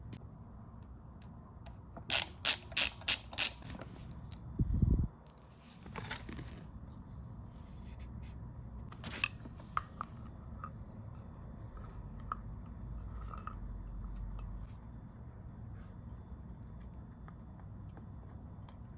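Hand-tool work on a small vintage air compressor: five sharp clicks in quick succession about two seconds in, then a short low thud, then scattered light taps of metal parts.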